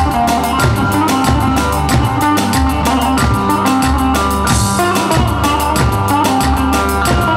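Loud wedding dance music: a davul bass drum beats a fast, steady rhythm under an amplified melody line.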